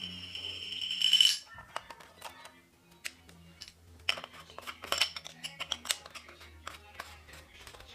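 A loud, steady high-pitched squeal that cuts off sharply about a second in, then scattered small clicks and taps of a hard-plastic camping lantern being handled, with faint background music underneath.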